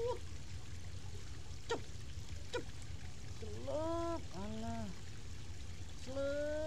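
River water flowing and rippling steadily. Over it come two brief falling chirps, then short pitched calls about halfway through and again near the end.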